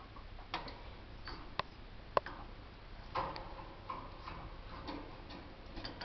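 Light, irregular clicks and taps in a canary's cage, about a dozen scattered ones with no steady rhythm. There is a short faint rasping sound about three seconds in.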